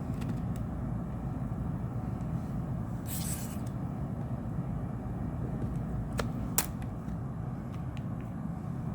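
Plastic prying picks working around the edge of an LG X Power 3's back cover: a brief scrape about three seconds in, then two sharp plastic clicks a little over six seconds in as the cover's clips are worked loose. A steady low rumble sits underneath.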